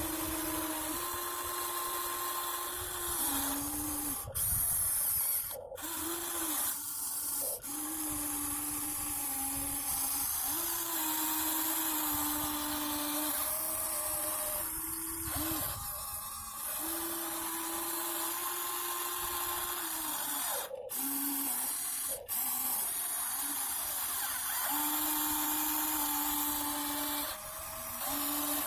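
Electric gear motors of a Huina 1593 RC excavator whining as it runs, the steady pitch stepping up or down and cutting out every few seconds as different movements start and stop.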